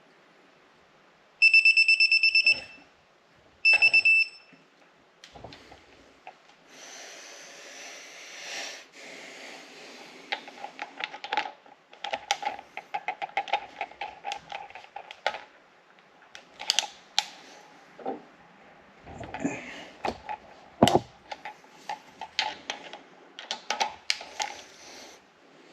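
A digital torque wrench's alarm beeps twice, about a second and then half a second, as a cylinder head bolt reaches its set torque on a Subaru EJ25 engine. This is followed by a ratchet clicking in quick runs as the next bolts are worked.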